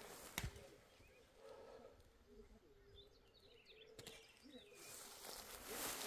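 Quiet rural outdoor ambience with faint chirps, broken by two sharp knocks about three and a half seconds apart.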